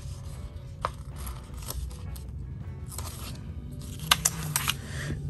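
Paper sticker-book pages rustling as they are handled, and a sticker being peeled and pressed onto a paper planner page. There are soft scraping rustles, with a single click about a second in and a quick run of sharp clicks around four seconds in.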